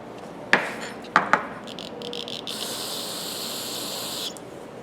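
A few short clicks as the ratchet parts are handled, then about two and a half seconds in a brush scrubbing lightly over the Thorsen 77J ratchet head: a steady scratchy hiss lasting a couple of seconds.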